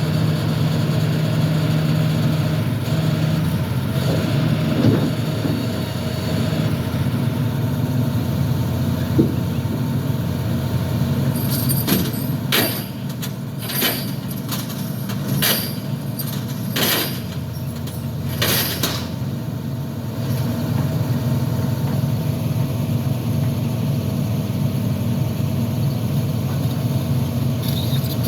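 Heavy diesel engine running steadily, with a string of about seven short, sharp noises in the middle.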